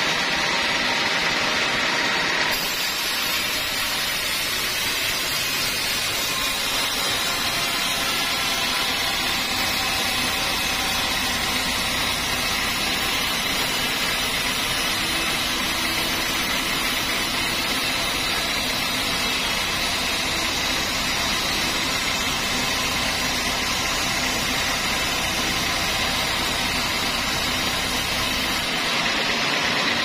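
Large band sawmill's blade cutting lengthwise through a teak log, a steady, noisy sawing sound. It turns hissier about two and a half seconds in and eases back near the end.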